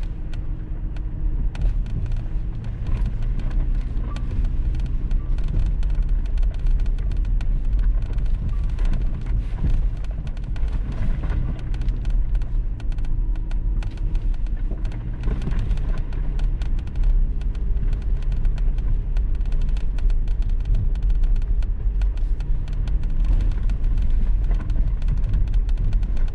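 Toyota 4Runner driving down an unpaved mountain road: steady engine and tyre noise with frequent small clicks and rattles.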